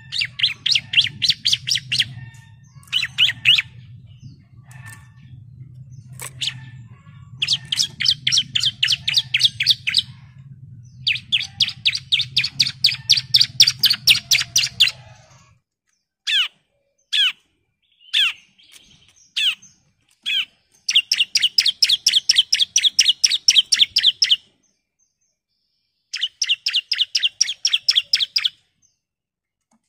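Bar-winged prinia (ciblek) singing: fast runs of sharp, repeated chirping notes, each run lasting a few seconds, broken by short pauses and a few single notes.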